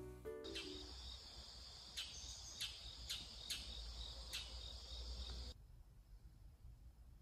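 Outdoor chorus of insects chirping in a steady high trill, with five sharp chirps standing out. It cuts off suddenly about five and a half seconds in, leaving quiet room tone.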